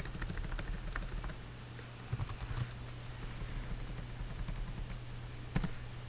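Computer keyboard keys tapped in a quick run of keystrokes, then a few more, and one sharper keystroke near the end as the command is entered, over a steady low hum.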